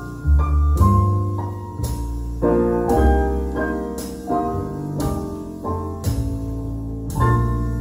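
Piano music with deep bass notes, played from a vinyl record on a Zorin TP-S0 turntable and heard through Divini Audio Reference 8 bookshelf speakers in the room.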